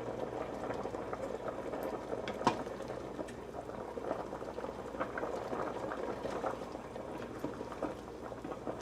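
Pot of beef and celery boiling on the stove for curry, a steady bubbling with many small pops. One sharper pop or clink about two and a half seconds in.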